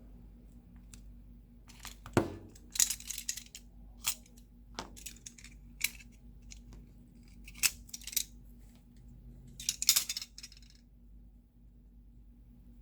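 Small hand tools working on a smartphone's frame: a string of sharp taps and clicks with short scratchy scrapes, starting about two seconds in and stopping near the end. This is a cutter and fingers laying and trimming double-sided adhesive tape.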